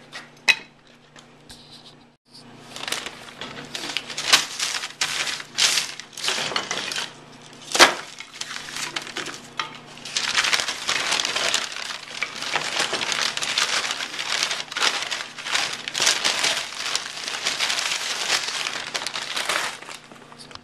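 Sheet of paper crinkling and crumpling while split wood kindling is handled on it, with sticks clattering against each other and one sharp knock about eight seconds in; the crumpling is steady through the second half.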